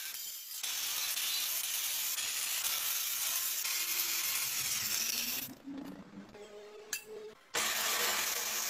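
Angle grinder's abrasive disc grinding steel, a steady hissing rasp. About two seconds from the end it drops to a quieter stretch, then comes back at full level.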